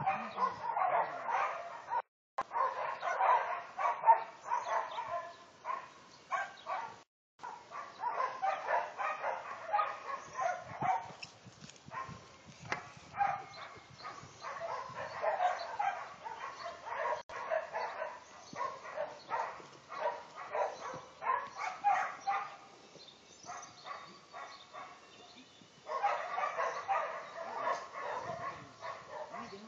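Dog barking repeatedly in rapid runs, easing off for a stretch about three-quarters of the way through, then picking up again near the end.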